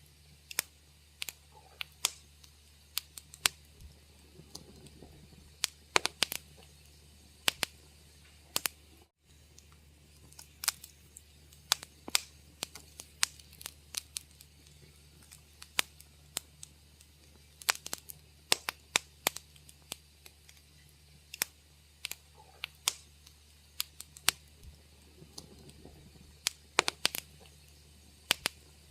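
Wood fire crackling in a fireplace: irregular sharp pops and snaps, often several a second, over a steady low hum. The sound cuts out for an instant about nine seconds in.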